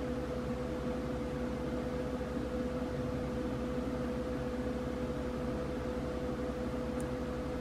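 Steady machine hum with one held tone over a low rumble, unchanging throughout.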